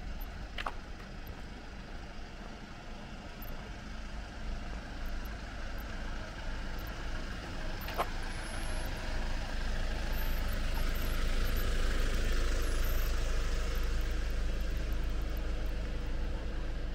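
Street traffic: a motor vehicle running, with a steady low rumble that grows louder to a peak about two-thirds of the way through. Two brief sharp clicks stand out, one near the start and one about halfway.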